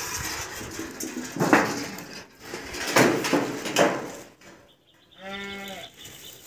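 A goat bleats once, a steady call of about half a second, about five seconds in, after several rough rustling noises.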